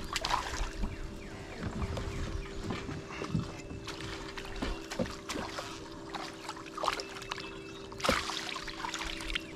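Crappie being played and landed on light tackle: scattered small clicks and knocks of handling and water over a steady low hum, with a louder splashing burst about eight seconds in.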